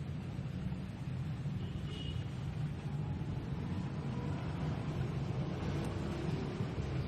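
A handheld power tool, such as a sander or polisher, running steadily on a finish with a continuous low rumble.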